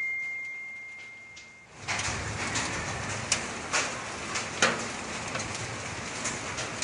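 Rain laden with volcanic sand and small stones falling on a roof, with sharp irregular ticks and knocks of pebbles striking. It starts about two seconds in, after a steady high tone that fades out.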